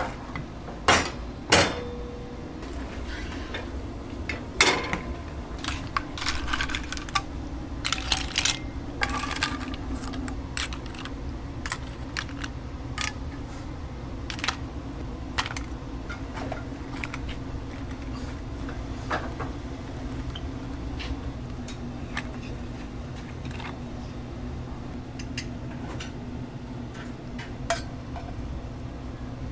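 Metal tray and utensils clattering on steel: a hot baking tray is set down on a stainless rack with a couple of loud clanks, then metal tongs click and clink against shells and a serving bowl in scattered knocks, over a steady low kitchen hum.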